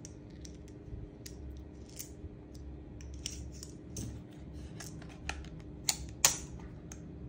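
Small scattered clicks and ticks of BBs being pushed from a tube speedloader into a gas blowback airsoft rifle magazine, with a couple of sharper clicks near the end.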